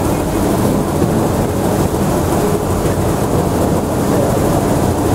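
Shallot chopping machine running: a steady, loud motor hum with a rumble and no change in pace.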